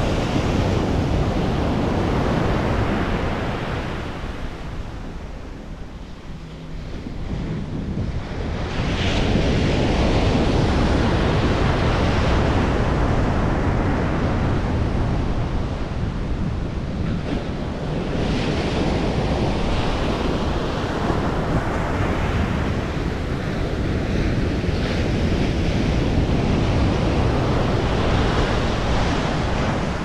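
Ocean surf breaking and washing up a sandy beach, swelling and ebbing in waves, with a lull about six seconds in. Wind buffets the microphone throughout.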